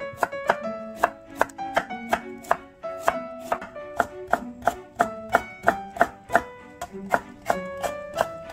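Kitchen knife cutting a carrot into thin slices and then matchstick strips on a wooden cutting board: quick, even knife strikes on the board, about three to four a second. Plucked-string background music plays under it.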